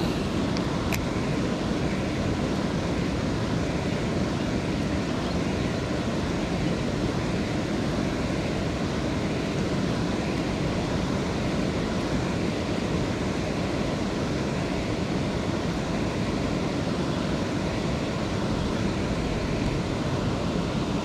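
Steady rushing of river water pouring over a weir.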